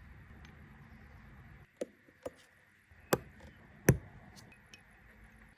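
Four sharp knocks and taps of hand tools and parts during brake caliper rebuilding, the loudest near four seconds in, over a faint low hum that stops about a second and a half in.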